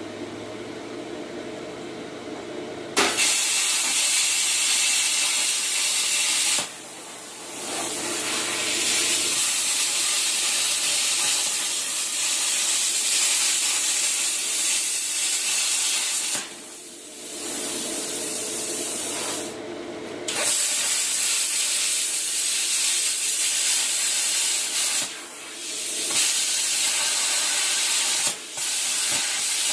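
Cut 50 plasma cutter cutting sheet steel: a quieter machine hum, then about three seconds in the torch fires with a loud, steady hiss, which cuts off briefly four or five times and restarts as the cut is stopped and resumed.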